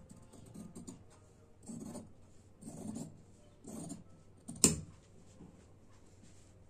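Large tailor's shears cutting through cloth in three main crunching strokes about a second apart, cutting a sleeve's armhole curve. Just before the five-second mark comes a single sharp knock, the loudest sound.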